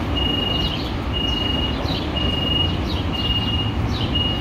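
Door-closing warning signal of a Milwaukee streetcar: a steady high beep about half a second long, repeating about once a second, each beep joined by a short chirp, over a low steady rumble.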